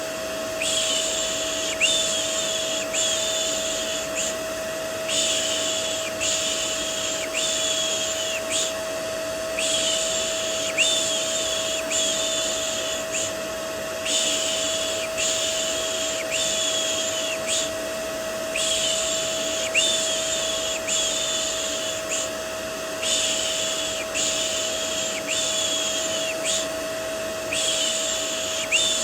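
Rhythmic "shh, shh" shushing for soothing a baby, in runs of about five strokes with short pauses between runs. It plays over a steady vacuum cleaner drone with a constant hum, used as white noise.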